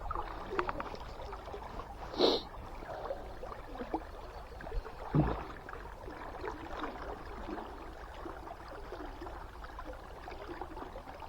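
River current flowing steadily, with a couple of brief louder noises about two and five seconds in.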